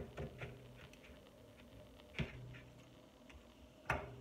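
Scissors cutting through a sheet of sandpaper: faint snips and rustles, a sharper click about two seconds in and a louder sharp click near the end.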